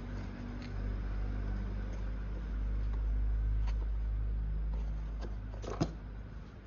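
Steady low background hum under faint clicks and rustles of hands pressing wires and connectors into a foam fuselage, with one sharp click near the end.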